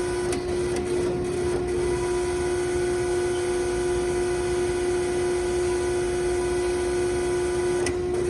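Akyapak AHS-5100 CNC 4-roll hydraulic plate bending roll running with a steady, even whine over a low hum, a faint click or two near the start and another near the end.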